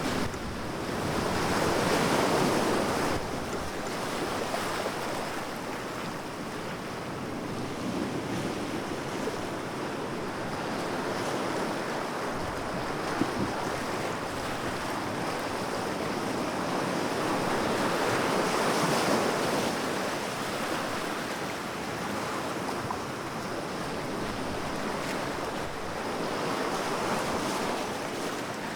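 Calm surf washing onto a beach: a continuous rush of seawash that swells and fades as each small wave comes in, every several seconds.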